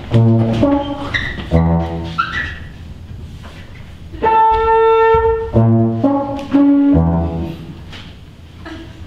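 Brass instrument music: a few short notes, a pause, one long held note, then three more short notes.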